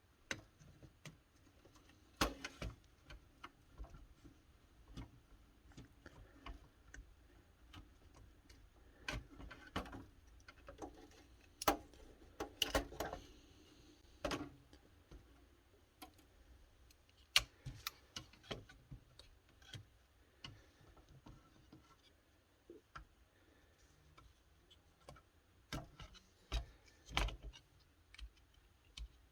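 Irregular small clicks and light metallic taps of screwdrivers, screws and metal chassis parts being handled while a VTR's tape transport is dismantled, with a few sharper knocks among them.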